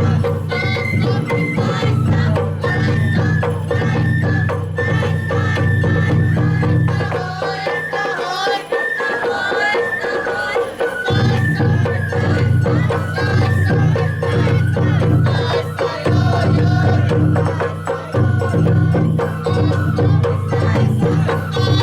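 Sawara-bayashi festival music: a high bamboo flute playing the melody over rapid drum and metal percussion. The low part drops out for a few seconds midway.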